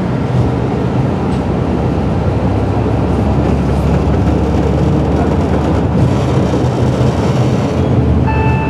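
Interior of a KiHa 32 diesel railcar running along the line: a steady low diesel engine hum under rolling wheel and track noise. A short beep sounds near the end.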